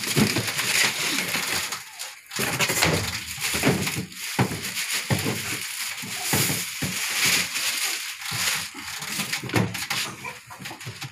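Clear plastic packaging crinkling and rustling in irregular crackles, with a few knocks, as a new plastic toilet flush tank is lifted out of its cardboard box and unwrapped.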